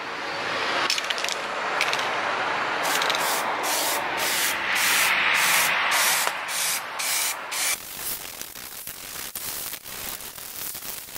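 Aerosol spray can of primer hissing as it sprays: one long continuous hiss, then a string of short bursts from about three seconds in, turning to a quieter scratchy clicking near the end.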